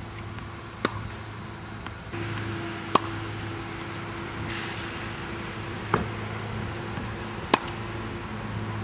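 Sharp single knocks of tennis balls being fired by a Tennis Tutor ball machine and struck with a racket: four of them, spaced irregularly, over a steady low hum.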